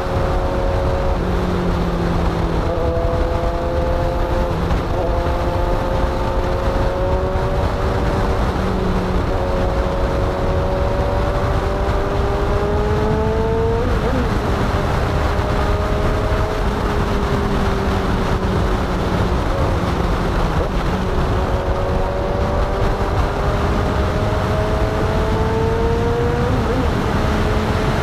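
Heavy wind buffeting on the camera microphone of a Kawasaki Ninja 1000 at expressway speed, with the bike's inline-four engine heard under it. The engine note rises slowly as the bike gathers speed and drops sharply, most clearly about halfway through and near the end.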